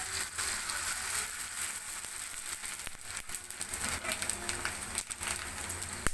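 Dried rice-flour leaf pitha sizzling and crackling as they puff up in very hot oil in a frying pan. There is one sharp click near the end.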